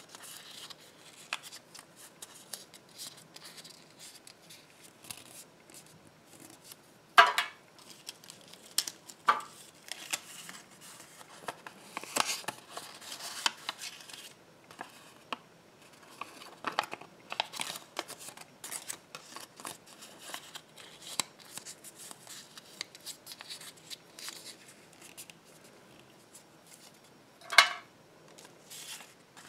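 Folded slips of thin paper being unfolded, flattened and handled: a steady run of short, crisp crinkles and rustles, with two louder sharp crackles about seven seconds in and near the end.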